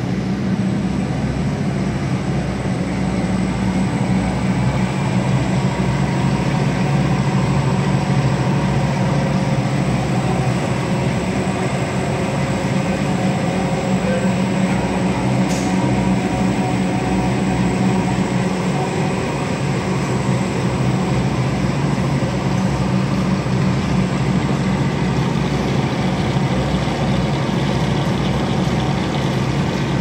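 Steel wire rope tubular stranding machine running: a steady, loud mechanical drone, with one short click about halfway through.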